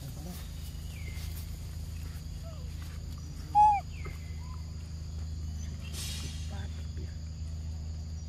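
Forest ambience: a steady high insect drone over a low hum, with scattered faint bird calls. One short, loud arched chirp comes about three and a half seconds in.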